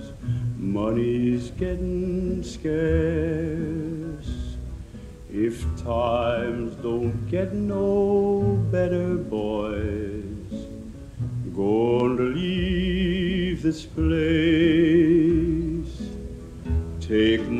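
A man singing a slow folk song with wide vibrato on long held notes, accompanied by acoustic guitar.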